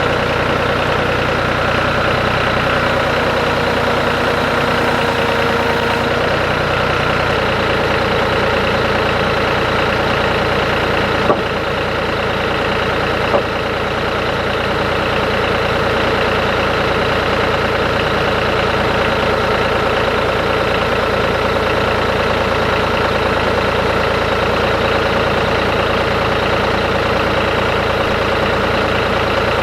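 John Deere tractor engine running steadily, its pitch shifting slightly several seconds in. Two short knocks sound near the middle, about two seconds apart.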